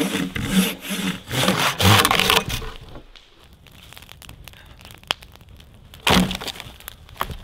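Wood breaking and cracking: a run of loud, rough strokes over the first couple of seconds, then a log fire crackling faintly with scattered pops, and one loud crack about six seconds in.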